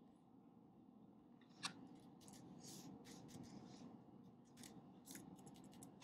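Faint scratching of a pen writing on paper in short, irregular strokes, with one sharp click about a second and a half in, over a steady low room hum.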